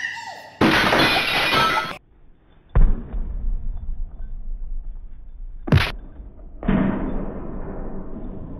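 A loud crashing noise for about a second and a half, then a sharp heavy thud. Later comes a brief sharp crack, and another crash near the end that dies away.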